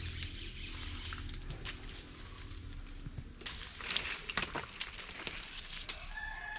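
Dry leaves and twigs crunching and rustling underfoot in forest leaf litter, with a cluster of sharp snaps about three and a half to five seconds in, over a faint outdoor background.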